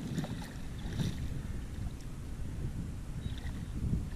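Wind rumbling on the microphone over water around a kayak, with a few light knocks and splashes about a second in and near the end.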